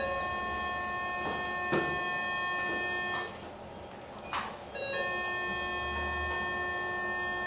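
A steady electronic tone, several pitches at once, that cuts off about three seconds in and starts again about two seconds later.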